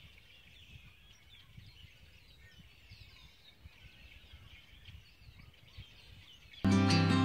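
Small birds chirping and twittering faintly, many short calls with quick pitch glides, over a low irregular rumble. Acoustic guitar music starts abruptly near the end.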